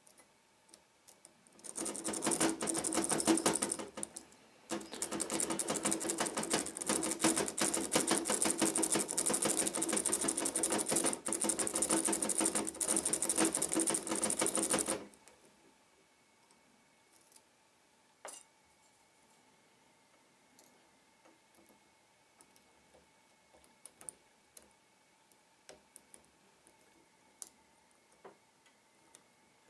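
Rapid metallic rattling of a lock pick being worked fast in the keyway of a Trioving 5632 padlock, starting about two seconds in with a brief pause, and stopping about halfway through. Scattered light clicks of the pick on the pins follow.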